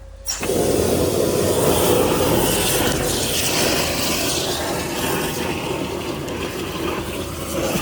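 High-pressure drain water jetter switched on and blasting water down the drain line: a loud, steady rushing noise that starts suddenly.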